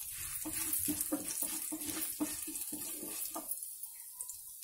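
Tempering of curry leaves, lentils, mustard seeds and dried red chillies sizzling and crackling in hot oil in a frying pan: a steady hiss with scattered pops. It is loudest just after the curry leaves go in and eases off a little about three and a half seconds in.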